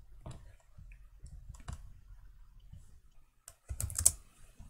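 Faint scattered clicks, then a short quick run of keystrokes on a computer keyboard about three and a half seconds in, as a dimension value is typed.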